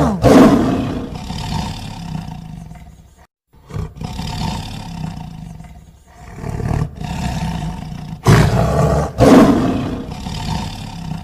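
Tiger roaring and growling: a loud roar at the start, weaker rumbling roars in the middle after a short break, and two strong roars close together near the end.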